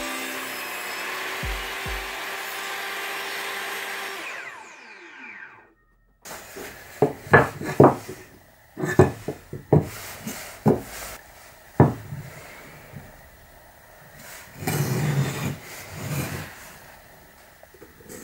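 A table saw running without cutting, then switched off, its pitch falling as the blade spins down. After a short silence, wooden blocks are set down and knocked on a wooden workbench: a run of sharp knocks, then softer handling and rubbing of the wood.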